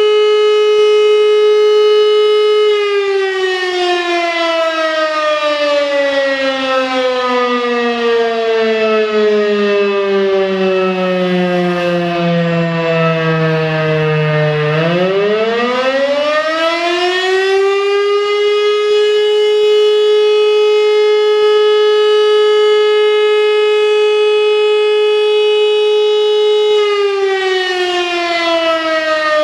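World War II German electric air-raid siren, probably an Elektror L1, sounding a fire-alarm test signal. A steady wail about three seconds in starts sliding down in pitch as the siren winds down for about twelve seconds, then climbs quickly back to full pitch, holds steady, and begins to fall again near the end.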